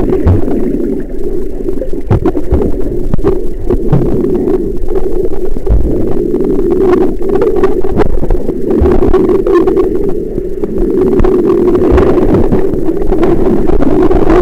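Muffled underwater noise picked up by a submerged camera: a steady low hum, with scattered knocks and clicks throughout.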